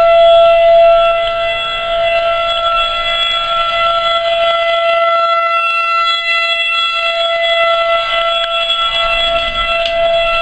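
Outdoor tornado warning siren wailing loudly on one steady pitch, sounding a tornado warning.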